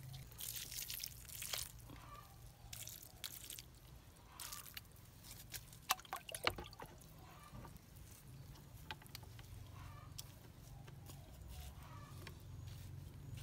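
Water being poured onto a freshly potted strawberry plant, dripping and splashing in scattered irregular drops, with a few louder plops about halfway through.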